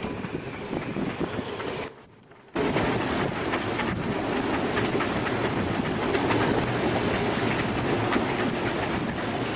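Storm-force wind blowing over the microphone, a steady rushing noise with a rough sea beneath it. It drops out briefly about two seconds in, then comes back louder.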